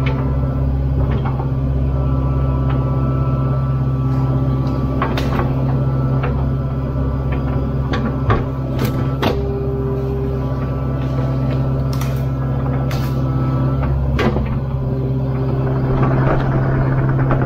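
Kubota KX057-4 mini excavator's diesel engine running steadily while the machine works, with several sharp knocks through the middle and later part.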